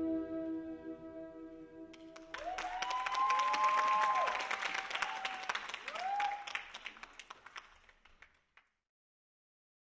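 Soft held music notes fade out, and about two seconds in an audience breaks into applause with a few whooping cheers. The applause thins and dies away to silence a little after the middle.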